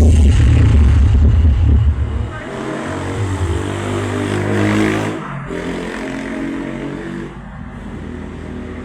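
Heavy bass for the first two seconds, then a motor vehicle's engine running, rising briefly in pitch a little past the middle before settling to a steady run.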